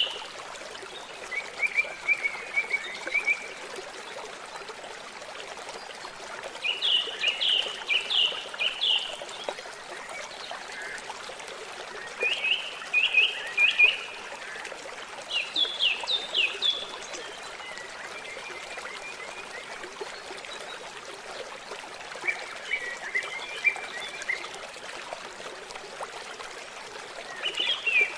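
A songbird sings short phrases of quick high notes every few seconds over a steady trickle of water.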